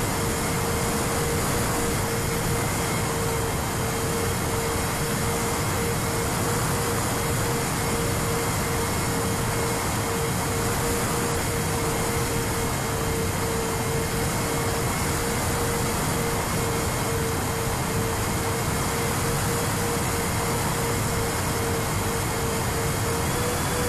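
Sonicmodell Binary's twin brushless electric motors (SunnySky 2212) and propellers running at a steady cruise, heard from on board as a constant hum over wind rush.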